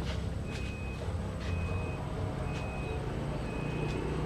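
Bus engine running with a steady low rumble, while a short high electronic beep repeats about once a second, as from a reversing alarm.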